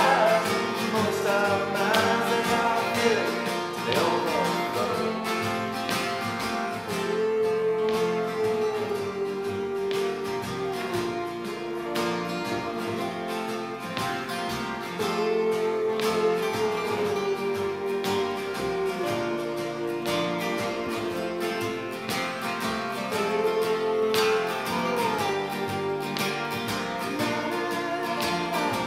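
Two acoustic guitars strummed and picked together while a man sings, holding long notes in three stretches.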